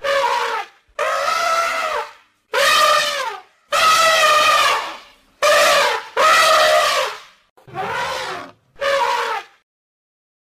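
Elephants trumpeting: a string of about eight separate calls, each lasting under about a second, with short silent gaps between them and some calls falling in pitch at the end.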